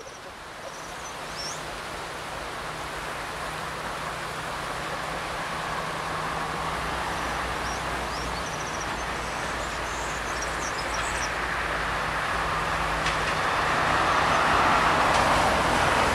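Diesel-hydraulic locomotive approaching with a train, its engine drone and running noise growing steadily louder as it nears.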